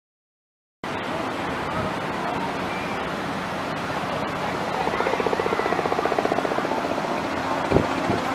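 Seaside beach ambience starting about a second in: a steady wash of ocean surf with faint voices of beachgoers. A rapid pulsing sound swells in the middle, and a single sharp knock comes near the end.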